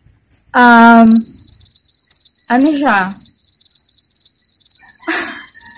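A cricket chirping: a high, rapid pulsing trill that starts about a second in and keeps going steadily.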